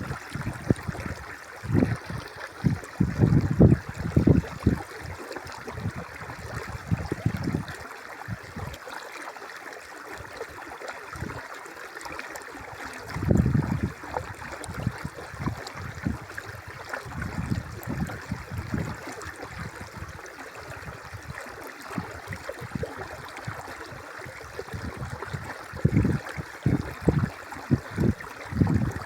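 River water flowing and babbling steadily, with gusts of wind buffeting the microphone in low rumbles during the first few seconds, about halfway through, and again near the end.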